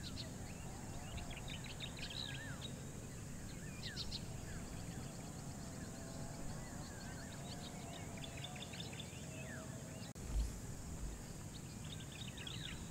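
Wild birds calling, with rapid high trills and short falling chirps repeated throughout, over a steady high hiss of outdoor background. A single low thud sounds about ten seconds in.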